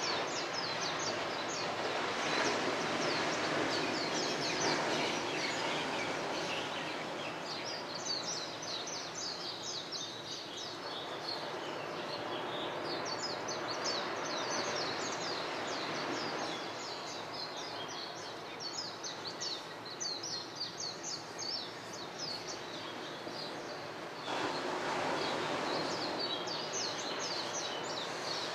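Many birds chirping and twittering rapidly in a dense morning chorus, over a steady rushing wash of surf that swells twice.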